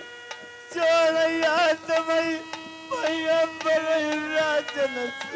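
A harmonium sustains a drone chord while a singer draws out long, wavering notes without words, in the style of a folk-song alaap. The voice comes in about a second in and pauses briefly twice.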